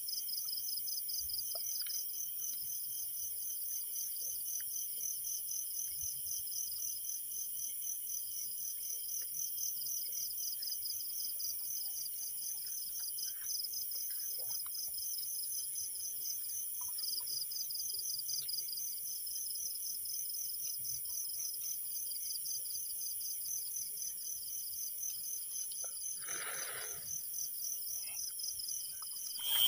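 Night insect chorus: crickets chirping in rapid, even, high-pitched pulses without a break, over a steady high hiss.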